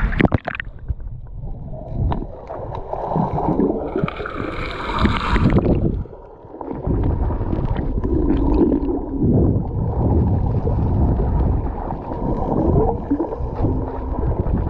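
Seawater gurgling and sloshing, heard muffled from under the surface. Briefly clearer about four to five seconds in.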